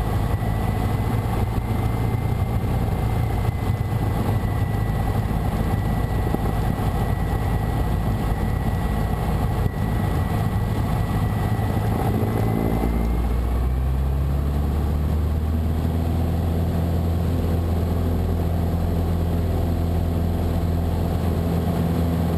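Cessna 150's Continental O-200 four-cylinder engine and propeller running steadily at full throttle, mixture leaned for maximum RPM, on a takeoff roll in thin air at about 9,200 ft density altitude. A thin high tone runs under the engine for the first fourteen seconds or so, and the engine note shifts lower about thirteen seconds in.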